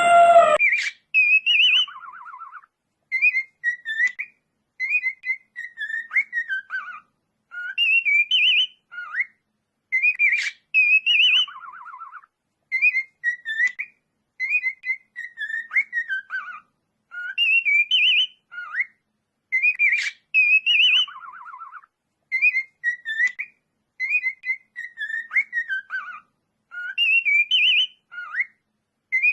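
A bird whistling the same short phrase over and over, about once every two seconds, some phrases ending in a lower buzzy trill. It opens with the tail of a louder, lower-pitched animal call that cuts off about half a second in.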